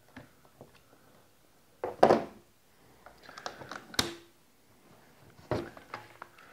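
Handling noise from a plastic sonar transducer and its mount on a workbench: a loud scraping knock about two seconds in, a sharp click at about four seconds, another knock near the end, and small ticks in between.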